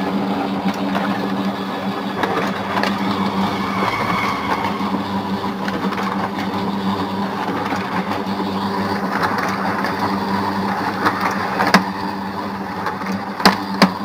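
Pantum M7102DW laser printer running a copy job. Its gear train gives a loud, steady drone with a low hum, and a few sharp clicks come near the end. This is the gear noise fault, which the owner traces to a white drive gear pressing too hard against the gear below it.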